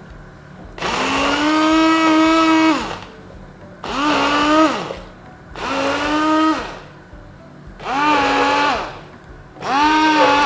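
Hand-held immersion (stick) blender puréeing lentil soup in a steel pot, switched on and off in five pulses. Each burst of motor whine rises in pitch as it spins up and falls as it stops; the first lasts about two seconds and the rest about a second each.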